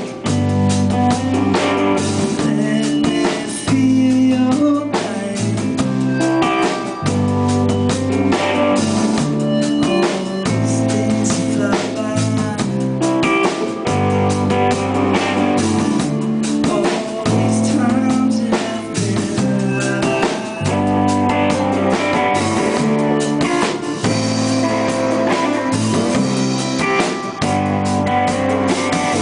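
A live rock band playing: electric guitar, bass guitar and drum kit, over a repeating bass line.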